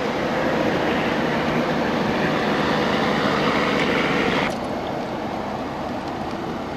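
Steady car driving noise heard from inside a moving car, a rumble with a hiss over it on a wet road. The hiss cuts off suddenly about four and a half seconds in, leaving a quieter rumble, and a short click comes near the end.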